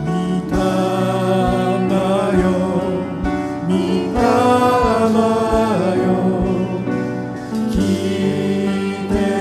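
A man singing a slow worship song into a microphone, backed by a band with a steady beat about two times a second.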